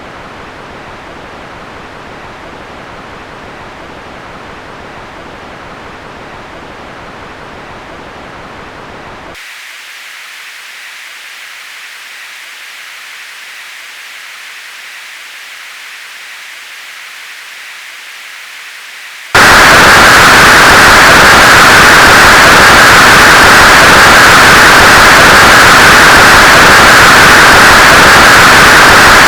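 Synthesized white noise played through a sequence of Csound filters. It starts as a dull, low-passed hiss (butterlp, 1500 Hz cutoff). About nine seconds in it changes to a thinner, mid-to-high hiss with the bass removed (the butterbr stage, set around 1000–2000 Hz). About nineteen seconds in it turns much louder: full-range hiss with a strong resonant emphasis around 1500 Hz from the reson filter.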